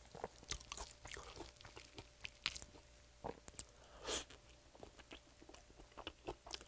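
Close-miked eating: biting into and chewing a piece of glazed fried chicken, in small wet clicks and smacks. One louder bite comes about four seconds in, as meat is torn from the bone.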